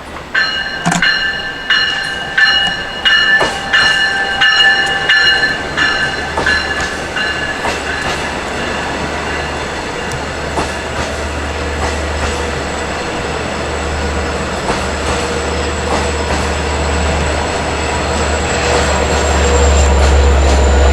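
A LIRR push-pull train of C3 coaches passes over the interlocking switches, its wheels clicking over the rail joints with high-pitched wheel squeal for the first several seconds. A deep diesel rumble from the DE30AC locomotive then builds and grows louder toward the end.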